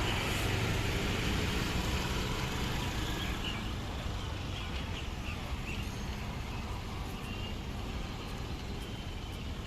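City road traffic: vehicles passing with a steady engine and tyre rumble, loudest in the first couple of seconds and then easing off.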